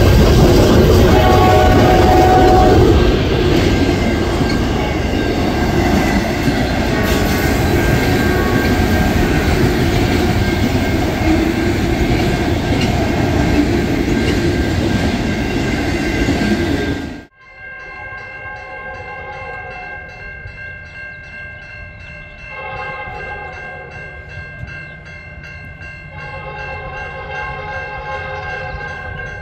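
Autorack freight cars rolling past close by: a loud, steady rumble and rattle of wheels on rail. It cuts off abruptly about 17 seconds in, and a distant approaching locomotive is heard sounding its horn, a held chord with lower notes joining twice.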